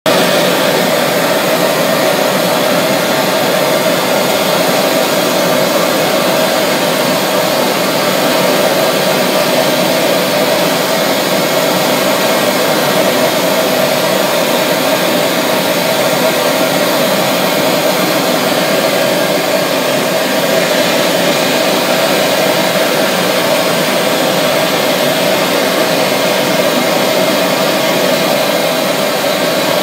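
Bench-mounted gas glassworking torch burning with a steady, unchanging rush of flame while glass tubing is heated to blow Christmas-ornament spheres.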